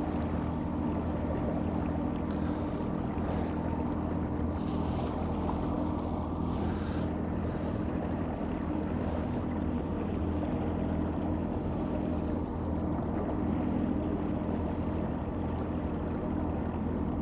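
Suzuki 60 hp outboard motor running steadily in gear, its propeller churning the water. It is under load, towing a heavy string of langoustine pots up on a rope tied off at the stern.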